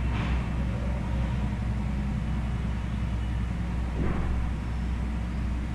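Steady low rumble and hum of background noise, with no speech.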